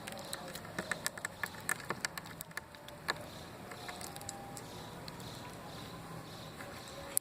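Slime being squeezed and poked, giving a quick run of small crackling clicks and pops in the first three seconds, then only occasional pops over a steady background hum.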